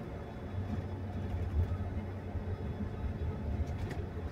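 Steady low rumble of a moving bus's engine and road noise, heard from inside its upper deck, with a few faint rattling clicks near the end.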